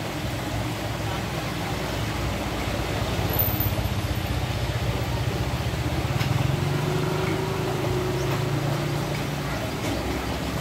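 Shallow stream water rushing over a small weir and rocks, a steady rushing noise. A low steady hum joins in past the middle and fades out near the end.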